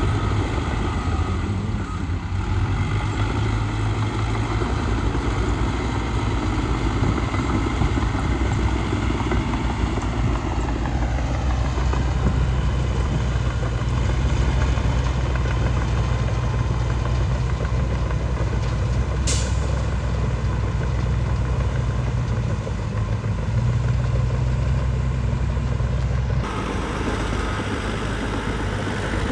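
Heavy diesel earthmoving machinery running steadily with a deep engine rumble. There is one short sharp hiss about two-thirds of the way through. The sound changes abruptly a few seconds before the end.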